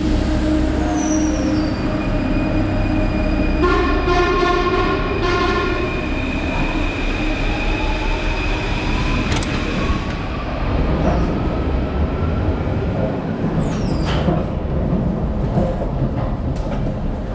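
Paris Métro MF01 train at the platform: its door-closing warning tone sounds for about two seconds, then the train pulls out with a slowly rising motor whine, over the steady rumble of the station. A brief high squeal comes near the end.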